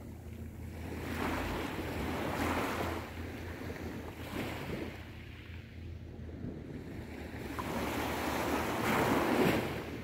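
Small waves of a calm sea breaking and washing up the beach, in two swells of surf, the second and louder one near the end. Wind rumbles low on the microphone.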